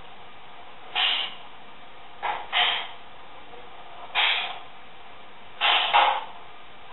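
Escrima sticks clacking against each other in sparring: a single strike about a second in, a quick double strike, another single strike, then another quick double strike near the end, over steady tape hiss.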